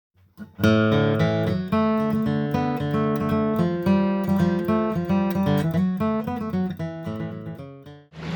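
Acoustic guitar intro music, picked and strummed notes starting about half a second in and dying away just before the end.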